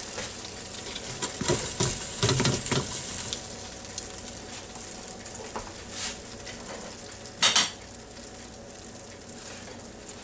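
Metal tongs clattering against the Ninja Foodi's air-fry basket and a plate as fried chicken pieces are lifted out, with a cluster of clatters early and one sharp clack later, over steady sizzling from the just-cooked chicken.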